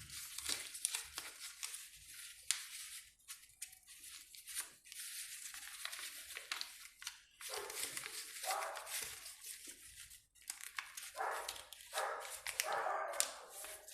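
Sheet of paper being handled, folded and creased into a paper airplane, crackling and rustling, with a dog whining at times, about eight and eleven seconds in.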